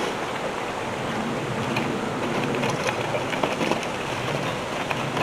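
Steady rushing outdoor noise with a few faint clicks scattered through it.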